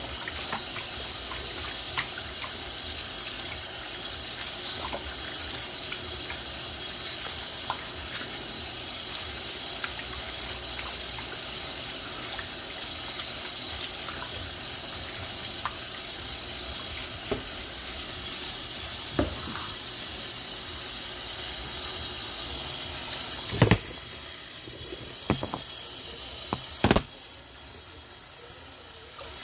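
Kitchen faucet running steadily into a pan of cubed beef in a stainless steel sink as hands rinse the meat, with scattered small clicks. A few louder sharp knocks come near the end, after which the tap runs more quietly into an empty steel pot.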